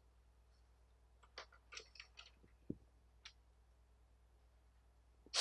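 Near silence, broken by a few faint clicks and rustles between about one and three and a half seconds in, and a short louder rustle at the very end.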